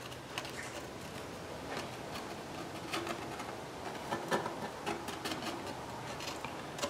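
Faint handling sounds of a Depron foam sheet and a glue tube: light rubbing with scattered soft clicks.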